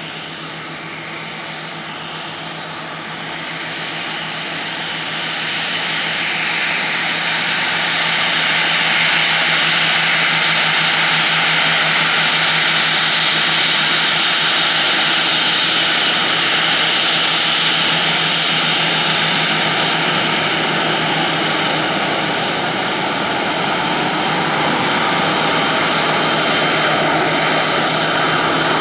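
Boeing 737-800's CFM56-7B turbofan engines spooling up to takeoff thrust. The noise builds over the first several seconds, then holds steady and loud as the jet rolls down the runway.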